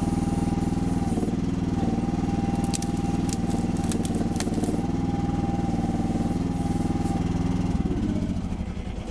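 Rippa R319 mini excavator's engine running steadily, with a steady high whine over it and a few sharp knocks about three to four and a half seconds in. The sound fades away near the end.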